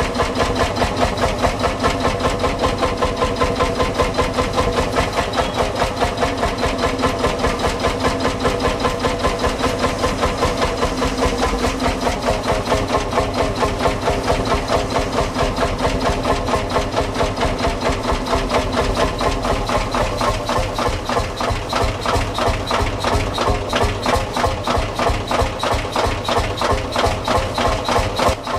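Old farm tractor engine running steadily at low speed with a rapid, even chug.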